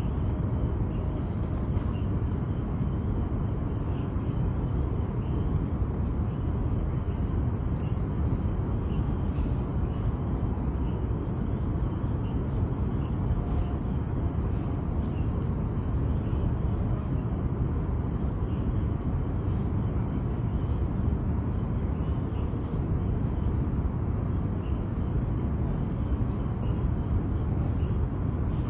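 Insects chirring steadily in an even, high-pitched chorus over a constant low rumbling background noise.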